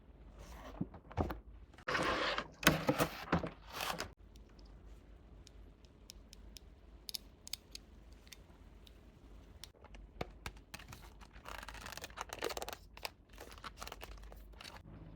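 Hands unwrapping packaging: rustling and tearing in two spells, with scattered small clicks and taps between them.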